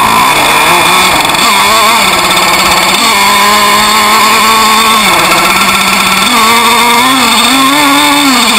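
Small combustion engine of a radio-controlled boat running loud and close. Its pitch holds steady for stretches and rises and falls with throttle changes several times, most often near the end.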